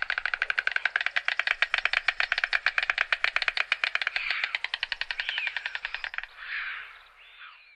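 White storks clattering their bills on the nest: a rapid, dry, machine-gun-like rattle of clicks in the head-thrown-back greeting display. The rattle fades after about four seconds and stops about six seconds in, followed by two short breathy rasps near the end.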